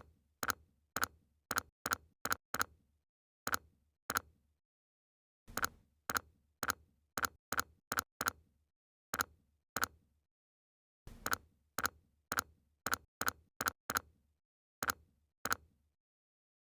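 A series of short, sharp tick sound effects with dead silence between them. They come in irregular runs of about two a second, broken by pauses of a second or more.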